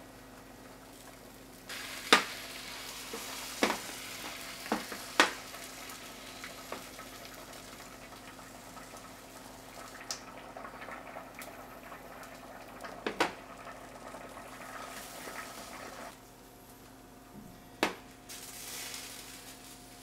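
Beaten egg sizzling in a small rectangular rolled-omelette pan, with a few sharp clicks of metal chopsticks against the pan. The sizzle drops away briefly a few seconds before the end, then returns.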